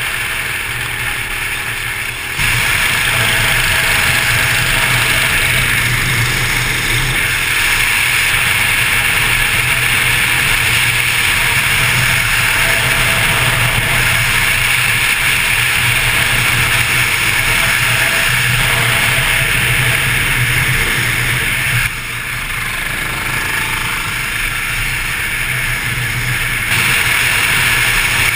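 Motorcycle riding at road speed: a steady engine drone under loud wind rush on the camera, with the level stepping up about two seconds in, dropping briefly near twenty-two seconds and rising again near the end.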